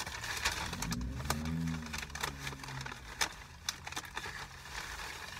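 Paper fast-food packaging rustling and crinkling as food is handled, with several sharp clicks.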